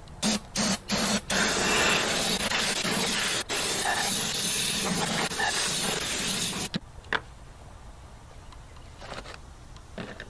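Aerosol brake cleaner hissing in three short blasts, then one long spray of about five seconds, as it is hosed over a cylinder head to degrease it. The spray cuts off suddenly, followed by a single click.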